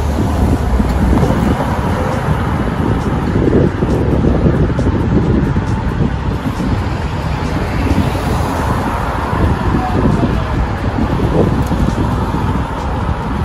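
Wind buffeting a bicycle-mounted microphone, a loud, uneven rumble, over the noise of car traffic on the street.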